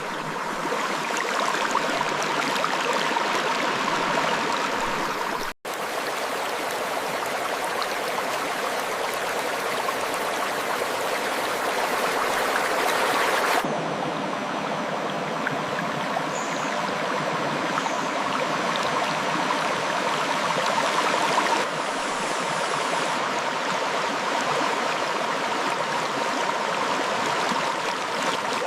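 Clear river water flowing over rocks, a steady rush of water. The sound drops out for an instant about five and a half seconds in. It changes abruptly, losing some of its high hiss, a little before halfway, and shifts again about three quarters through.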